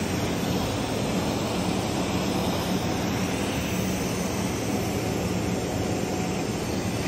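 Steady, even hissing drone in a welding shop while a TIG torch lays the capping pass on a 12-inch steel pipe joint, with a faint low hum underneath.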